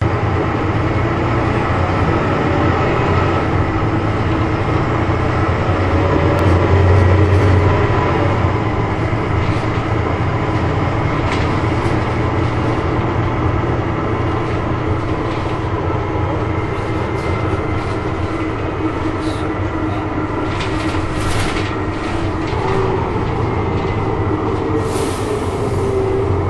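Cabin noise inside a moving Renault RVI PR 100.2 city bus: the diesel engine and drivetrain give a steady low drone, which grows louder about six to eight seconds in. Scattered clicks and rattles sound over it.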